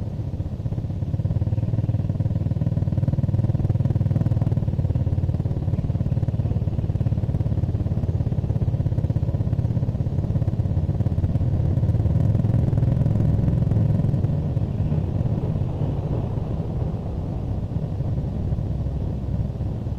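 A motor vehicle engine running steadily, heard as a low rumble that grows louder about a second in and eases after about fourteen seconds.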